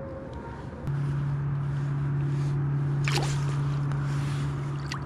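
A boat's motor starts up about a second in and runs with a steady low hum. About three seconds in there is a single short rush of water, like a splash.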